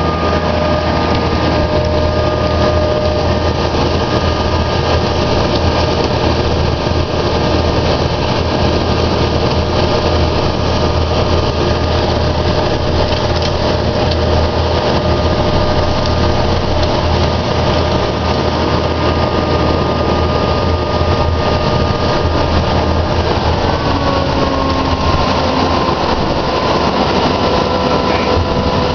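Vactor sewer-cleaning truck running its vacuum system, a loud steady rush with several whining tones, pulling water and debris up through the suction tube lowered into a manhole. About three-quarters of the way through the whine drops slightly in pitch.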